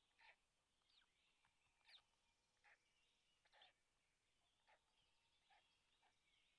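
Very faint: a string of short bird calls, roughly one a second, over faint background birdsong.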